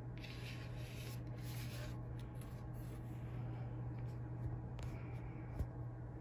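Paintbrush rubbing paint onto a paper-covered board in soft, scratchy strokes, strongest in the first two seconds, over a steady low hum. A small tap near the end.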